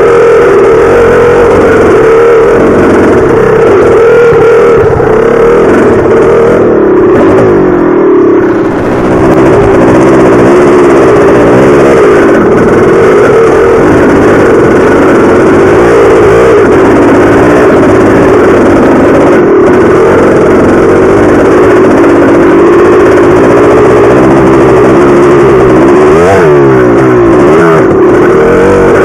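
1983 Maico 490's two-stroke single-cylinder engine pulling the bike along, loud and close. Its revs rise and fall with the throttle, with a brief drop about eight seconds in and another rev swing near the end.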